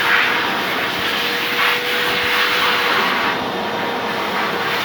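Vacuum cleaner motor running steadily with a faint hum, its air rush swelling and easing every second or two.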